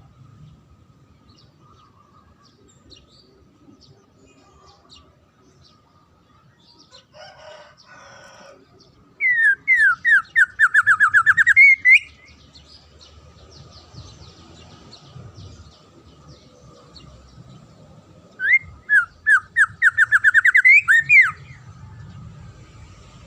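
A songbird singing two loud phrases, each a fast run of repeated whistled notes ending in a rising flourish: one about nine seconds in, the other about eighteen seconds in. A faint steady high tone runs underneath, and softer chirps come just before the first phrase.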